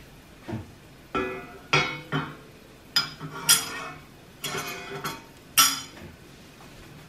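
A metal spoon and a small white plate clinking as they are handled and set down on a gas stovetop: a string of about eight sharp clinks, each with a brief ring, spread over five seconds.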